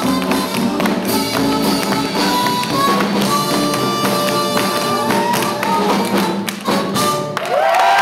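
Live swing big band playing an up-tempo number while tap shoes click out rhythms on a wooden dance floor. About seven seconds in the band hits a final chord that ends the routine, and cheering and whoops break out from the audience.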